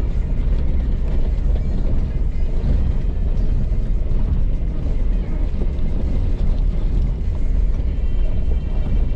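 Off-road vehicle driving over rough ground: a steady, loud low rumble of engine and tyres.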